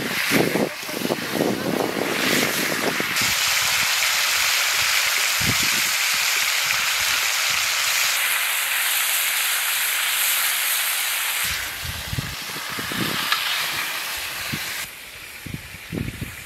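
Veal pieces sizzling loudly in a hot pan over a wood fire, with a spoon stirring and knocking against the pan in the first few seconds. The sizzle drops away near the end.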